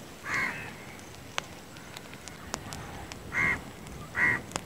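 A crow cawing three times: short harsh calls, one near the start and two close together near the end, with faint scattered clicks between them.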